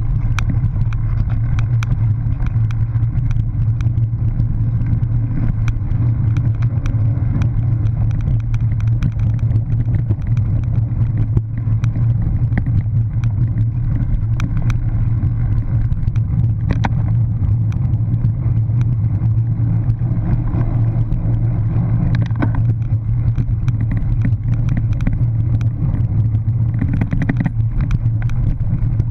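Cyclocross bike ridden over rough dirt and grass, heard through a camera mounted on the bike: a steady loud low rumble with constant rattling clicks from the bike and mount over the bumpy ground.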